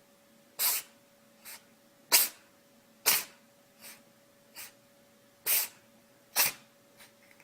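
An animal sneezing again and again: about six sharp, hissy sneezes with a few fainter ones between.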